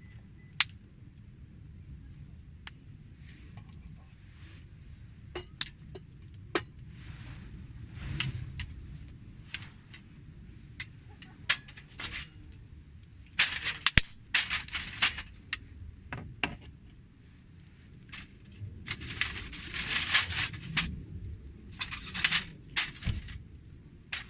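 Wood campfire crackling, with scattered sharp pops over a low rumble. Longer stretches of rustling, clattering noise come about halfway through and again near the end.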